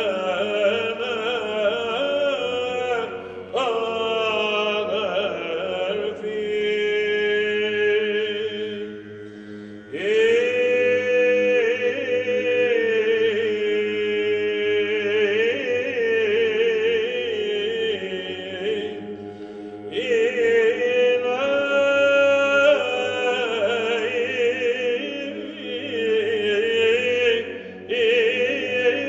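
Male cantors singing Byzantine chant a cappella: a melody that rises and falls over a steady held drone (the ison) from the other voices. The melody breaks off briefly about every ten seconds while the drone holds.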